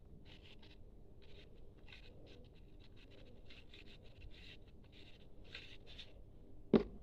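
Slime mixture being worked: a run of soft, irregular sticky clicks and crackles, then one sharp thump near the end.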